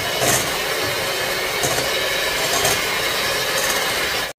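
Philips electric hand mixer running on high, its beaters whirring steadily through cake batter in a glass bowl. The sound stops abruptly near the end.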